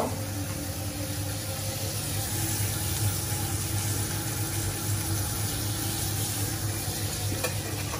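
Cauliflower sizzling steadily in brown butter in a hot cast-iron skillet as it is pressed down with a metal spatula, the butter frying out of the confit cauliflower to caramelise it. A steady low hum runs beneath.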